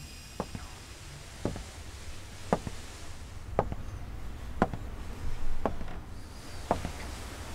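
Sharp single knocks or ticks, evenly spaced about once a second, over a low steady hum.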